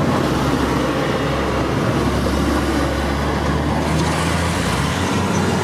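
Car engine running steadily, with a low hum under a constant hiss.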